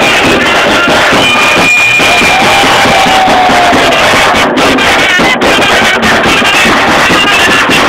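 Davul bass drum and zurna playing a loud Çorum halay dance tune.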